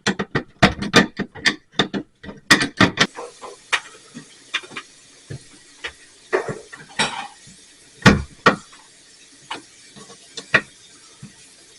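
Irregular knocks and clicks from things being handled and bumped. They come thick and fast for about the first three seconds, then fall to scattered single knocks.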